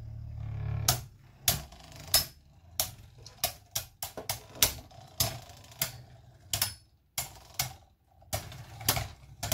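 Two Beyblade Burst spinning tops, Bushin Valkyrie and Venom Pegasus, whirring in a plastic stadium and knocking into each other with repeated sharp plastic clacks, irregular and roughly every half second.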